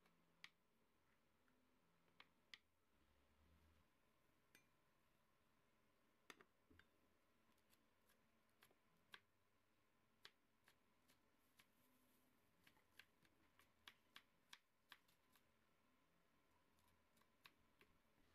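Kitchen knife chopping broccoli and romaine lettuce on a wooden cutting board: faint, irregular taps of the blade striking the board, coming more quickly in the second half.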